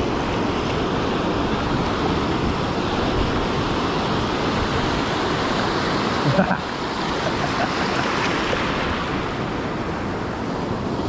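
Ocean surf washing onto the beach in a steady rush, with a brief louder moment a little after six seconds in.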